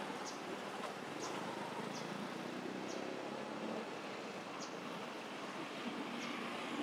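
Steady outdoor background noise with short, high chirps about once a second, six or so in all.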